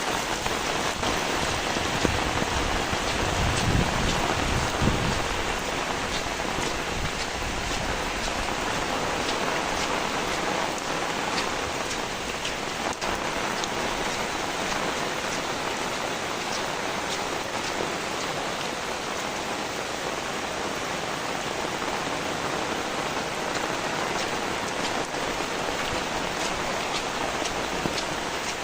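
Heavy rain falling steadily, with scattered sharper drips, and a brief low rumble a few seconds in.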